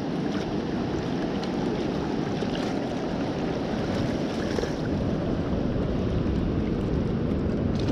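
Shallow ocean surf washing and swirling steadily around the wader's legs, with a few faint splashes as a sand scoop is lifted out of the water.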